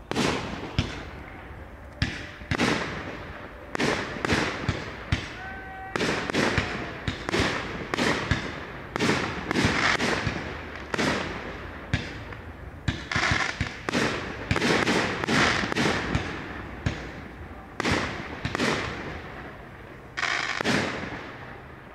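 Fireworks display: aerial shells bursting in a steady run of loud bangs, about one a second and sometimes two close together, each followed by a rolling echo.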